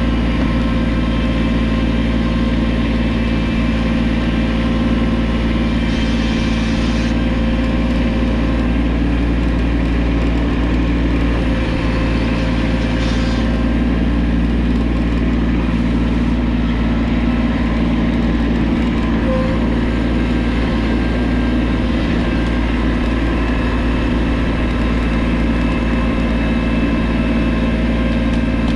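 Kubota tractor's diesel engine running at a steady speed, its pitch holding constant throughout.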